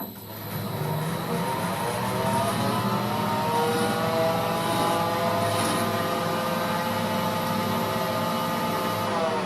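Holbrook C8 toolroom lathe starting up and coming up to speed within about a second, then running steadily with a whine of several tones over a low hum.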